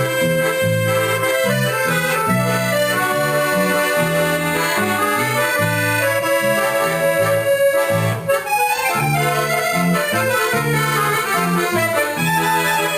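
An ensemble of three accordions with a bass guitar playing a melodic piece: sustained accordion melody and chords over regularly pulsing bass notes.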